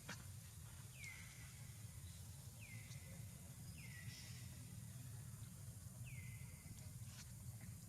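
Faint, repeated bird call: a quick whistled slide down that settles into a short held note, about five times at uneven intervals, over a steady low background hum.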